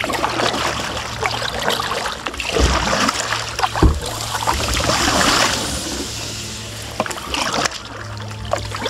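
Kayak paddling: a double-bladed paddle dipping and pulling through the water in alternating strokes, with splashing and dripping from the blades. Two dull knocks come through near the middle.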